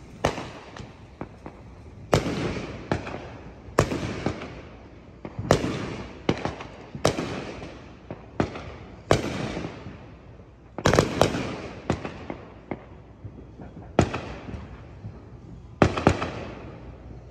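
Fireworks exploding across a neighborhood: a steady run of sharp bangs every second or so, each trailing off in an echo. Several come in quick bunches about eleven and sixteen seconds in.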